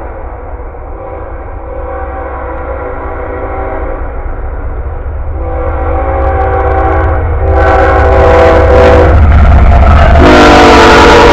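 Approaching freight locomotive of a short intermodal train sounding its air horn in a series of long blasts, each a chord of several notes, getting louder as it nears, with the loudest blast starting near the end. A steady low rumble from the train runs underneath.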